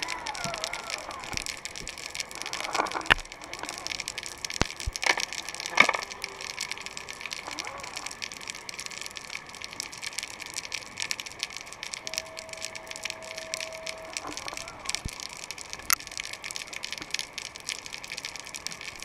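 Underwater sound picked up through a GoPro Hero3's housing as it hangs on a line: a dense, continuous crackle of tiny clicks, with sharp knocks about three and six seconds in and a faint steady whine about two-thirds of the way through.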